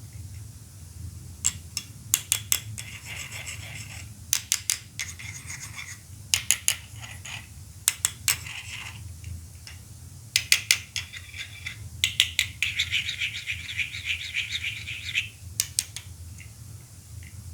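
Hard plastic toy Poké Balls clicking and snapping: clusters of sharp clicks, with stretches of light rattling between them.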